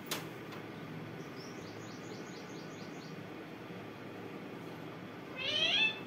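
Pet green parakeet calling: a quick run of about eight faint, high, falling chirps, then near the end one loud rising call about half a second long. A sharp click comes right at the start.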